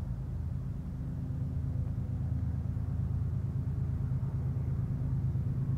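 Diesel locomotives running under power, a deep engine rumble that grows steadily louder as the train approaches.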